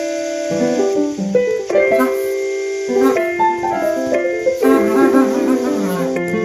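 Keyboard music: a piano-like instrument playing several notes at once, the chords shifting every half second or so.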